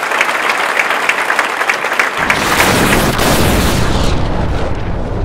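Audience applauding; about two seconds in, a deep cinematic boom with a rushing whoosh cuts in, the sound of a logo sting, and slowly fades away.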